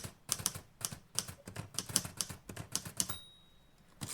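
Typewriter keys clacking in a quick run of keystrokes, about five a second, stopping about three seconds in.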